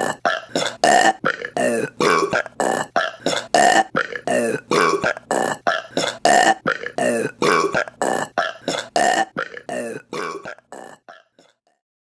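A rapid run of short burps, about two a second, in an evenly repeating pattern that fades out near the end.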